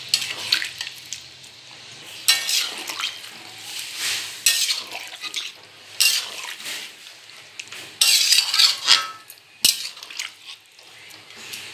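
Metal spatula stirring chicken curry in an aluminium kadai, with irregular scraping strokes against the pan and the thin gravy sloshing; the water has just gone in. One sharp knock comes near the end.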